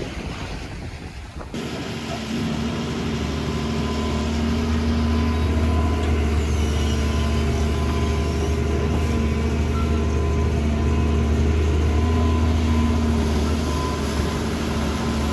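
Large diesel engine idling with a steady low drone, from the Doosan DX225 tracked excavator standing right beside the car.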